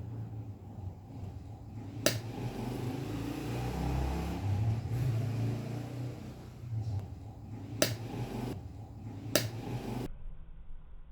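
Old Panasonic air-conditioner outdoor fan motor running on a direct mains connection: a steady low hum with a rushing noise that swells in the middle, broken by three sharp cracks, the first about two seconds in and two close together near the end. The motor is worn out and on the way to burning out.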